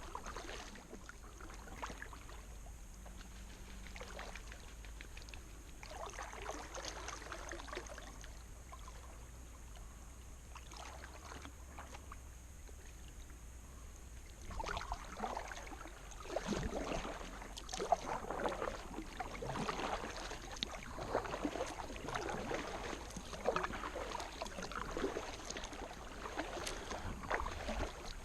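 Kayak paddle strokes in the water, the blades dipping and splashing. They are soft at first, then come steadily about once a second from about halfway on.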